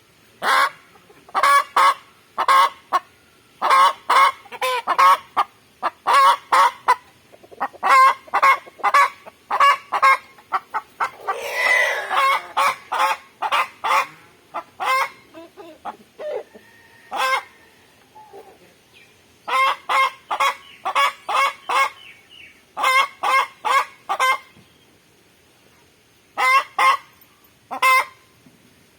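Chickens clucking in rapid runs of short, loud calls, several a second, broken by brief pauses, with one longer, harsher squawk near the middle.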